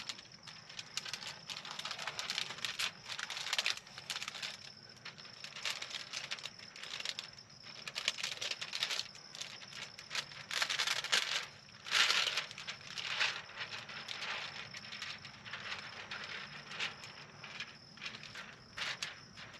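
Plastic window tint film crinkling and rustling in irregular bursts as it is handled and positioned against a truck's side window glass, with the loudest rustle about twelve seconds in.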